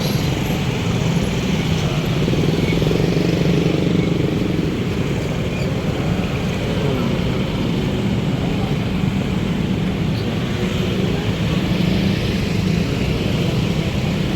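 Road traffic in a jam: a steady mix of car and motorcycle engines running at low speed.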